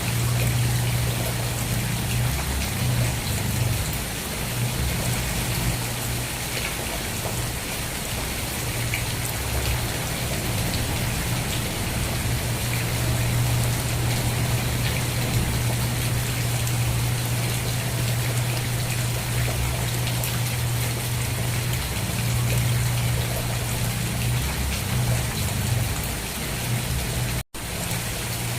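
Steady rain, a dense, even hiss of falling drops, with a continuous low hum underneath. The sound cuts out completely for an instant near the end.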